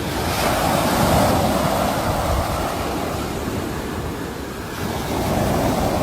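Sea waves breaking and washing up the shore: a surge of surf starts right away, swells for about a second and slowly falls off, and another wave rises near the end.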